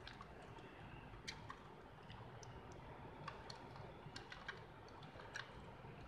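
Mechanical keyboard keys being pressed: faint, irregular clicks and clacks of individual keystrokes.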